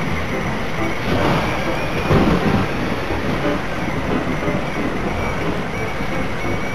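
Thunderstorm: an even rush of rain with a rumble of thunder about two seconds in.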